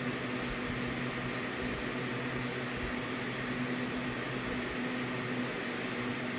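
A steady background hum with hiss, unchanging throughout.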